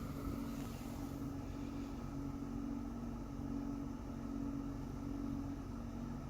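Abnormal noise from the air conditioning of a Toyota Mark X (GRX130): a steady low hum of two close pitches, over a low rumble.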